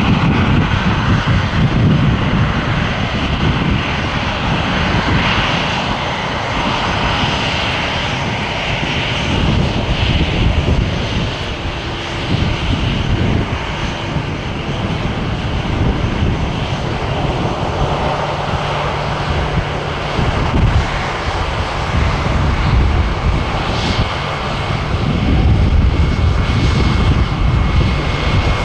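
Jet airliner engines running at close range: a loud, uneven low rumble with a hiss above it, and a steady high whine joining in over the last few seconds.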